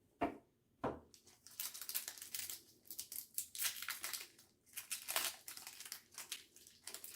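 Foil Pokémon booster pack wrapper crinkling and tearing as a pack is handled and opened by hand, after two sharp clicks near the start.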